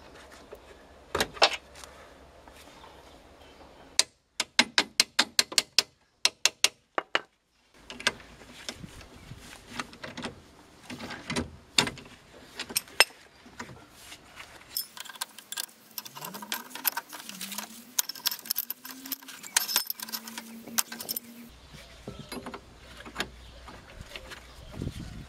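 Metal hand tools clinking and clicking against the tie rod end and steering rod of a car: a quick run of sharp clicks about a third of the way in, then scattered clinks, and a ratchet wrench clicking near the end.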